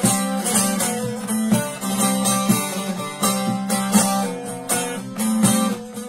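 Bağlama (long-necked saz) played solo: a quick plucked and strummed melody that keeps coming back to a steady low note.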